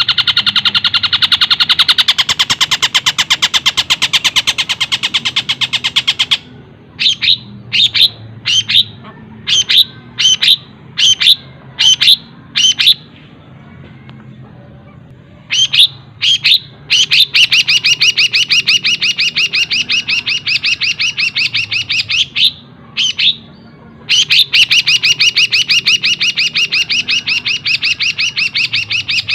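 Long-tailed shrike singing a mimicked song, with imitations of kingfisher and sparrow calls worked in: long, very fast, tightly spaced trills, broken in the middle by a run of about a dozen separate sharp, downward-slurred notes, then two more long fast trills.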